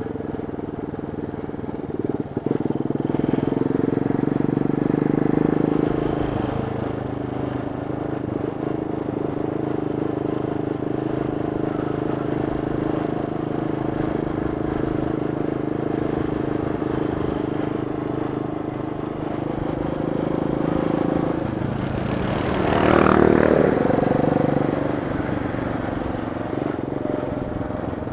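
Honda Bros 160's single-cylinder four-stroke engine running as the motorcycle rides along, picking up a little about two seconds in and then holding steady. A brief louder rushing noise swells and fades late on.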